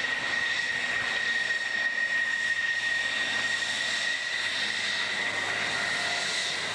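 F-16 fighter jet's engine running at taxi power: a steady high whine over a continuous rushing hiss.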